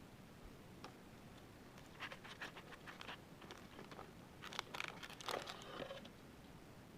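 Faint, scattered rustling and crinkling of trading card packaging being handled, with a few small clicks, busiest in the middle of the stretch.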